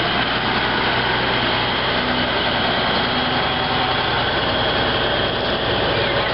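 Diesel engine of a semi-truck tractor running steadily as it rolls slowly past.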